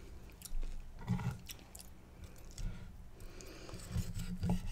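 Close-miked chewing of a mouthful of steak, moist and irregular, with a few soft clicks of a knife and fork cutting into the steak on a wooden board.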